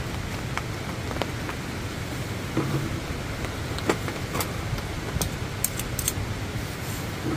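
Steady rain, with clinks and scrapes of a metal spoon and tongs against a round griddle pan as rice is turned out and stirred; several sharp clinks come in quick succession about five to six seconds in.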